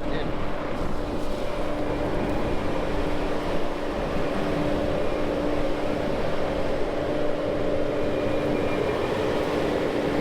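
Heavy equipment engine running steadily at a constant pitch, a machine with a bucket working the rock.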